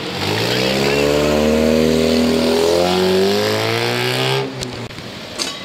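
A car engine revving hard as the car accelerates, its pitch rising, easing and rising again through a gear change. About four and a half seconds in the throttle shuts off suddenly, followed by a couple of short sharp sounds.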